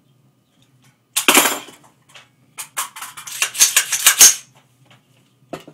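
Metal clacks and clicks from an AR-15 rifle and its 20-round magazine being handled. There is one sharp clack about a second in, then a run of irregular clicks and rattles for nearly two seconds, and a last click near the end.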